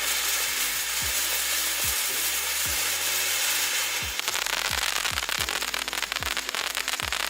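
A consumer firework fountain spraying sparks with a steady hiss, which turns into dense rapid crackling about four seconds in.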